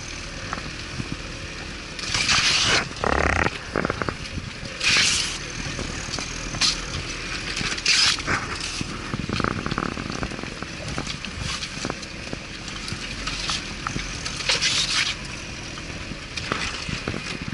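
Off-road vehicle engine running low and steady, with short hissing scrapes every two to three seconds as hawthorn branches drag along the body.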